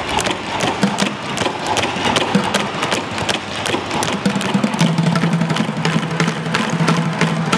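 Live street percussion: tap shoes clattering on wooden tap boards and drumsticks beating on upturned plastic buckets in a fast, dense rhythm. A steady low note joins in about five seconds in.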